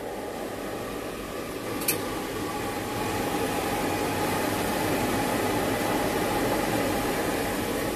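Wave soldering machine running with a steady mechanical whir, growing a little louder about three seconds in. A single sharp click comes about two seconds in.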